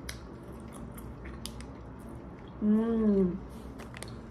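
A person chewing a soft, chewy candy rope, with small wet mouth clicks throughout. About three seconds in comes a short hummed "mmm" of enjoyment, slightly falling in pitch.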